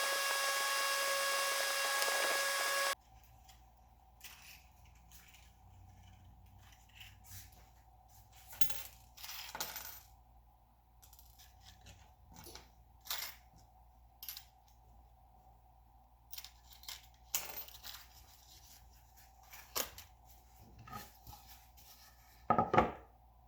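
A power tool running with a steady whine stops abruptly about three seconds in. Then come light scattered clinks and taps of small hard objects being handled, with a louder clatter near the end.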